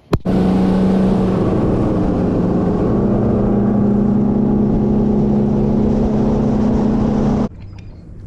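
Boat's outboard motor running steadily at speed, its drone stepping up a little in pitch about three seconds in, then cutting off abruptly near the end.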